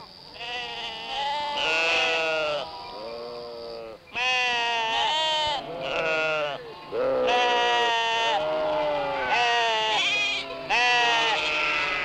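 A flock of sheep bleating: one call after another, several overlapping, with wavering pitch.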